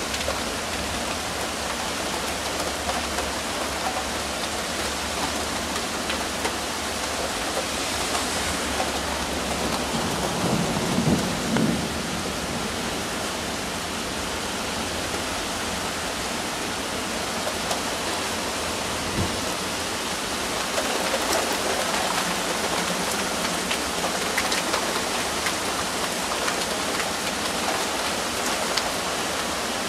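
Steady rain of a thunderstorm, with a roll of thunder rumbling up and fading away a little over ten seconds in.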